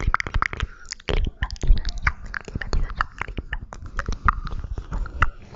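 Close-miked ASMR mouth sounds: a dense, irregular run of wet lip and tongue clicks and smacks, several a second.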